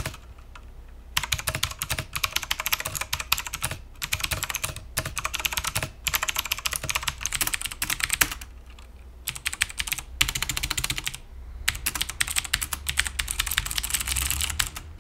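Fast typing on mechanical keyboards, dense runs of clicky keystrokes broken by short pauses: first a CM Storm QuickFire TK with Cherry MX Blue switches, then, after a pause about eight seconds in, an AULA SI2012 whose Cherry-style switches may be Kailh clones.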